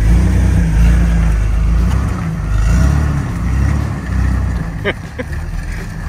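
Jeep Wrangler's engine running and pulling away, a strong low rumble that swells and falls with the throttle. A few short high squeaks come near the end.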